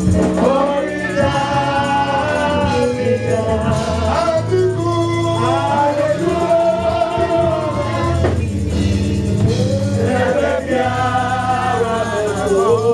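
Gospel worship song: voices singing together over sustained bass and keyboard-style backing, the sung lines held and sliding between notes.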